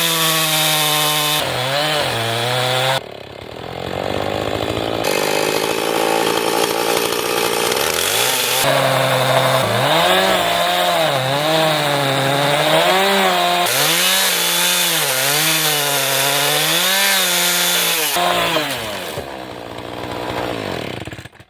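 Chainsaw running under load, ripping lengthwise through a black walnut log along a chainsaw mill cutting guide. The engine's pitch wavers up and down as it bogs and recovers in the cut, drops briefly about three seconds in, and winds down near the end.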